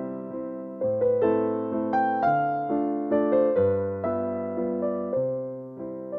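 Background music: a slow, gentle piano piece on electric piano, notes and chords struck about every half second to a second and left to fade over low bass notes.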